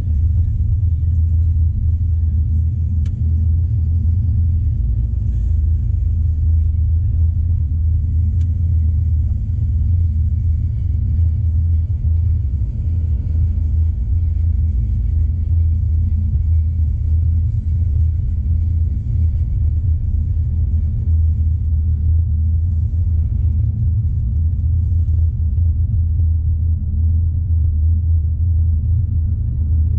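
Steady low rumble of a car driving along a paved road: engine and tyre noise heard from inside the cabin.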